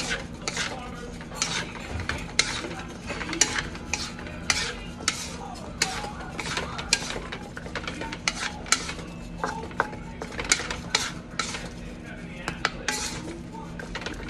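A utensil stirring food in a cooking pot, clinking and scraping against the pot irregularly about once or twice a second, over a steady low hum.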